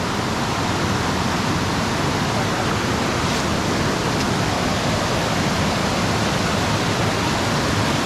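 Rushing water of a waterfall heard up close: a steady, even rush with no breaks.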